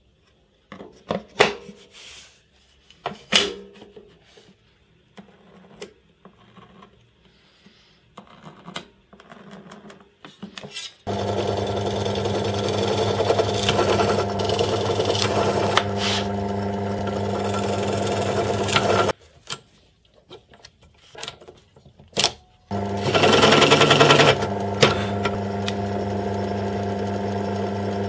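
Light clicks and knocks of handling a plywood insert, then an electric drill in a drill stand runs steadily for about eight seconds while boring a hole in the plywood. It stops, starts again, is louder and harsher for a second or two, then keeps running steadily.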